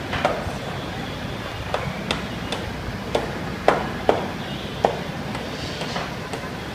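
Hand hammering at a building site: about ten sharp, irregular knocks, the loudest a little past halfway, over a steady background din.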